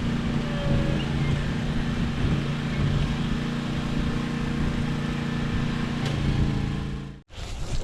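An engine running steadily at a constant speed, with a low, even hum; the sound cuts off abruptly near the end.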